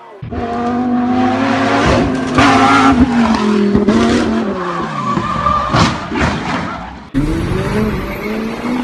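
Sports car engines at high revs with tyres squealing, as a car accelerates and skids hard. The engine note falls slowly; about seven seconds in it cuts abruptly to another car's engine revving up.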